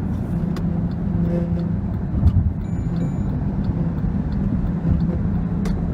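Cabin of a 2013 Jeep Grand Cherokee at highway speed: steady road and wind noise with a low, bee-like buzz from the dashboard. The buzz is air leaking up under the dry-rotted, lifting windshield cowl seal.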